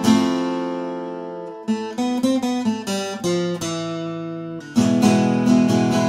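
First Act MG431 acoustic guitar played unaccompanied: a chord strummed and left to ring, then a quick run of single picked notes about two seconds in, then strummed chords again near the end.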